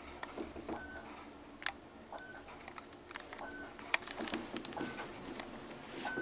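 Faint short electronic beeps repeating every second or so at uneven intervals, with a few sharp clicks and a low background hum.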